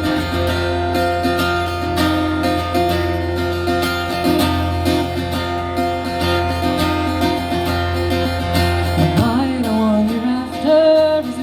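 Live acoustic guitar strumming the intro of a song, with a singer's voice coming in near the end.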